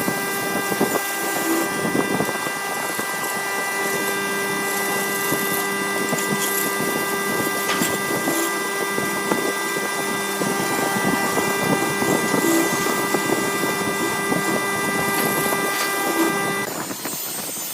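Wood lathe running, a steady whine of several tones over a rushing noise; the whine stops about a second before the end.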